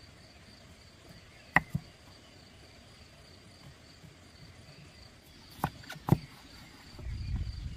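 Steady high-pitched chirring of crickets, with a few sharp knocks: two about a second and a half in and three in quick succession around six seconds in. A low rumble comes in near the end.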